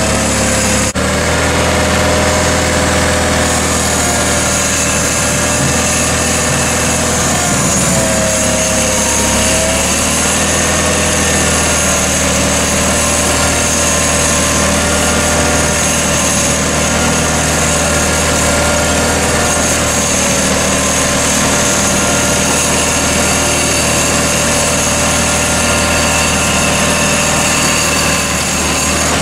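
John Deere 318 garden tractor's two-cylinder Onan engine running steadily while the tractor pushes snow with its front blade, the pitch wavering briefly about eight seconds in.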